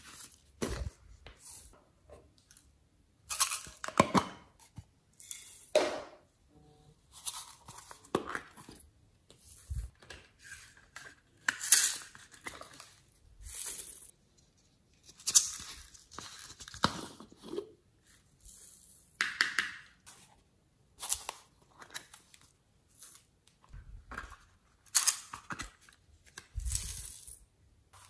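Small plastic glitter and sequin containers being handled, their lids clicked open, and sequins and glitter shaken out onto soft clay: irregular short rustles and clicks every second or two.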